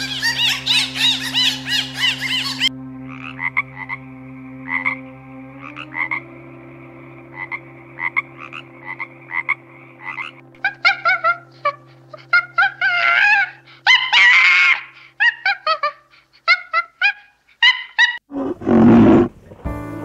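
Frogs croaking in short repeated calls, evenly spaced at first and later wavering in pitch, over a steady low hum. At the start a dolphin's rapid clicks and squeals cut off after about two and a half seconds, and a loud, rough animal call begins near the end.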